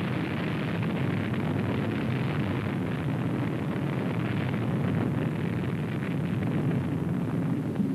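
A jet bomber's engines at takeoff power as it runs down the runway and lifts off: a steady, even rushing noise with no change in pitch.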